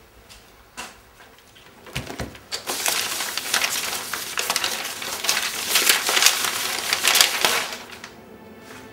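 Loose sheets of paper rustling and crackling as a pile of papers on a desk is sifted through by hand, starting about two and a half seconds in and dying down near the end. A few soft knocks come before it.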